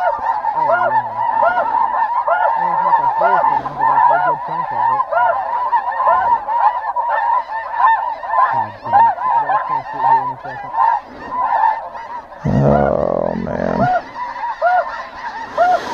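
Snow geese calling: a dense, unbroken chorus of many high honks and yelps, from the electronic caller in the decoy spread and the flock circling overhead. A brief low rumble cuts in about three-quarters of the way through.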